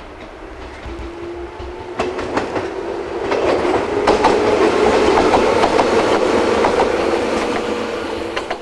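A 113 series electric multiple unit passing close by: wheels clicking over rail joints over a steady whine. It grows louder as it approaches, is loudest in the middle seconds as it goes by, then fades.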